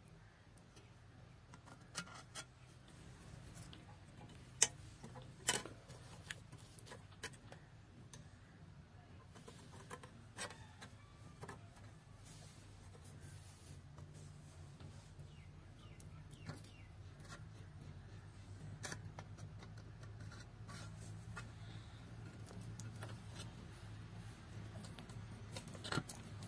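Faint, scattered clicks of a plier-type saw set squeezing a hand saw's teeth to bend them into set, with a light rubbing noise in the later part over a low steady hum.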